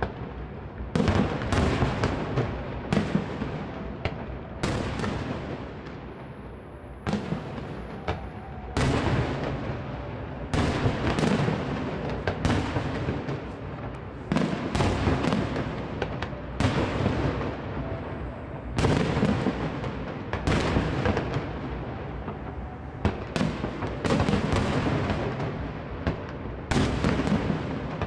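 Aerial fireworks shells bursting in a continuous series, a sharp bang about every one to two seconds, each followed by a rolling echo that dies away.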